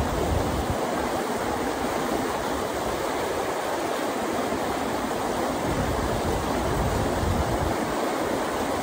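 River water rushing over rocks and through shallow riffles: a steady, even wash of water noise.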